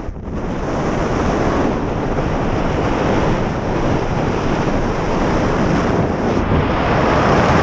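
Steady, loud rush of air buffeting a skydiver's camera microphone during a tandem jump, rising slightly near the end.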